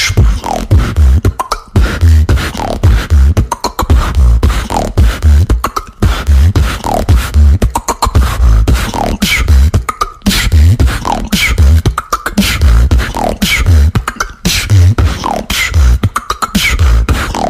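Beatboxing: mouth-made deep bass kicks, sharp hi-hat-like clicks and short falling vocal sweeps, looping in a steady pattern that repeats about every two seconds.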